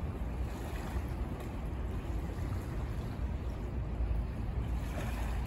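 Wind buffeting the microphone: a steady, uneven low rumble with a faint hiss above it, over open harbourside ambience.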